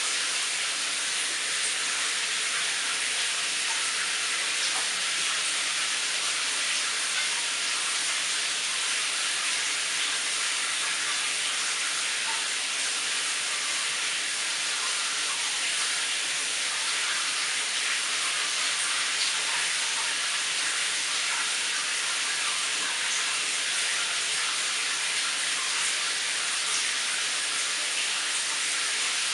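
Shower running: a steady, unchanging hiss of falling water spray.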